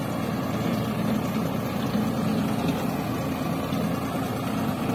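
Tractor engine running steadily under load, driving a PTO rotary ditcher that is cutting a channel through wet field soil.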